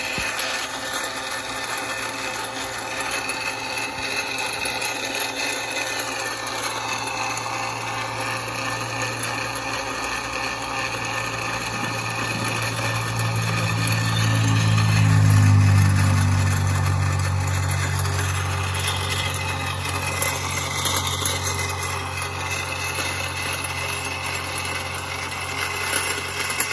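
Greenworks 80V brushless cordless tiller running, its electric motor whining steadily as the tines churn soil and grass. Twice the whine sags in pitch and recovers as the tines bite, and a deeper drone swells to its loudest about halfway through.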